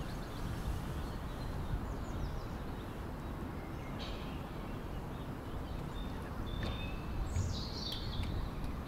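Steady outdoor background rumble with a few small birds chirping, high and brief: once about four seconds in and a couple of times near the end.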